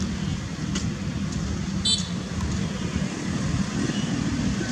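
Steady low outdoor rumble, with a faint click about a second in and a brief high-pitched chirp about two seconds in.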